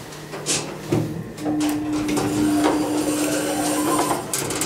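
KONE traction elevator's automatic car doors opening at the landing: a knock and clicks from the door mechanism, then the door operator's steady hum for about three seconds while the doors slide open.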